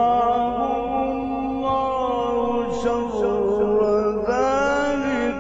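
Male Quran reciter chanting in the ornamented Egyptian mujawwad style, holding long melismatic notes. A new phrase starts about four seconds in, rising in pitch.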